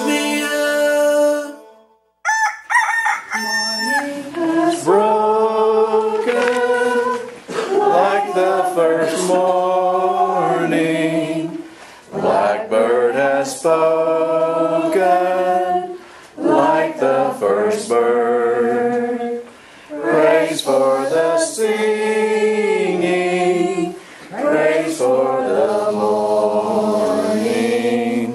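A song fades out, then a group of voices sings without accompaniment in long, held phrases with short breaks between them.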